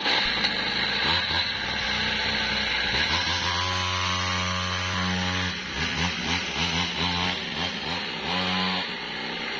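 Small two-stroke engine of a mini cross pocket bike running and being revved, its pitch climbing and holding, then rising and falling with the throttle several times as the bike pulls away, dropping and getting a little quieter near the end. The engine is running again after taking in floodwater.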